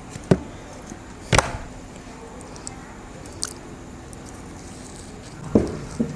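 Close-up eating sounds of a soft brownie dipped in peanut butter: a handful of sharp clicks and smacks, the loudest about a second and a half in, with quiet chewing between them.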